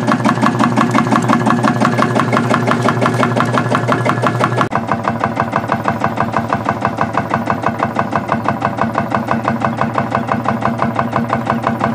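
Field Marshall tractor's single-cylinder two-stroke diesel engine running, a rapid, even beat of firing strokes. The tone shifts slightly about five seconds in.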